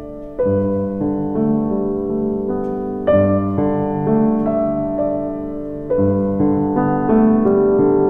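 Background piano music: a gentle piano arrangement of a Christmas carol, with soft chords changing every half second or so.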